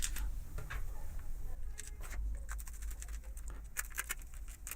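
Screwdriver driving in the screws of a magnetic starter as it is put back together: scattered small clicks and ticks at an irregular pace.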